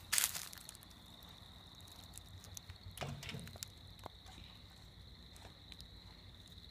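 A brief crunching rustle at the start, footsteps or handling on dry ground, then quiet outdoor background with a faint, steady high-pitched whine and a few faint ticks.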